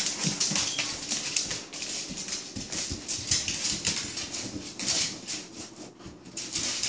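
A Saint Bernard puppy and a Shih Tzu moving about and playing on a hard tiled floor: many small claw clicks and scuffles.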